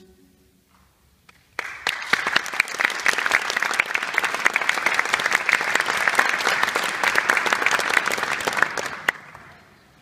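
Audience applauding a choir at the end of a piece: after a brief hush, dense clapping breaks out about a second and a half in and dies away near the end.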